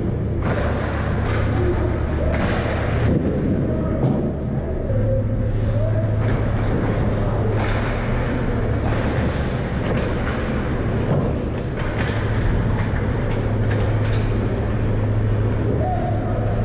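Ice hockey play on a rink: frequent sharp clacks and knocks of sticks, puck and skates over a steady low rumble.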